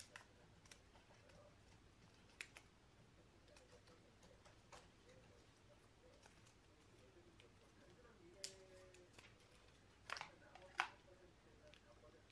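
Faint handling sounds of a new iPhone's USB-C to Lightning charging cable being unwrapped: light rustles and scattered clicks as the paper wrap is pulled off and the coil loosened, the sharpest clicks a little after ten seconds in.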